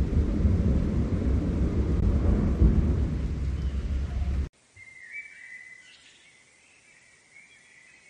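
A loud, deep rumbling noise that cuts off abruptly about four and a half seconds in, giving way to a much quieter forest ambience with a small bird singing short, high chirping phrases.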